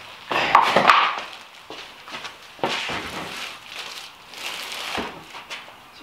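A heavy battery being handled and slid into a plywood box, with scraping and knocks. The loudest burst comes about half a second in, shorter ones follow near three and four and a half seconds, and there is a sharp knock at about five seconds.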